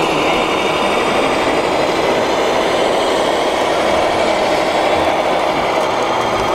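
A steady mechanical din of a model truck's engine sound from its sound module, over the continuous noise of a busy exhibition hall.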